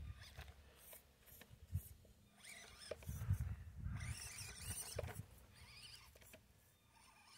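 Axial SCX24 Gladiator mini RC crawler's small electric motor and gears whining in short spurts, the pitch rising with throttle, loudest in the middle stretch, as it climbs over loose rock. A few sharp clicks of stones and tyres on the rock.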